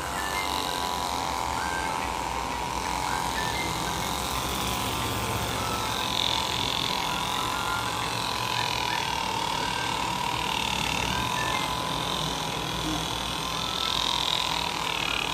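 A small motor running steadily, its hum wavering slowly up and down in pitch.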